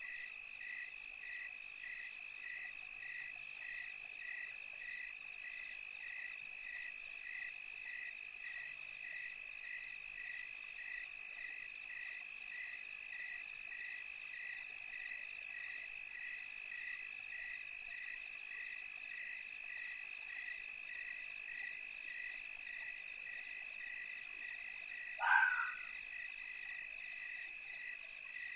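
Night-time chorus of insects and frogs: a steady high-pitched trill with a regular chirp about twice a second beneath it, and one louder short call near the end.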